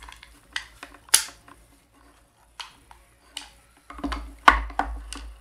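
Clicks and knocks of a sewing machine foot pedal's hard plastic case and parts being handled and fitted back together. They come as scattered single clicks, a sharp one about a second in, and a quicker run of knocks near the end.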